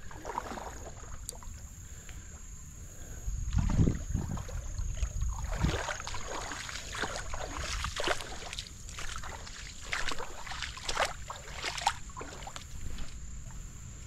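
Water sloshing and splashing in irregular strokes as someone wades through a shallow creek, heaviest about four seconds in.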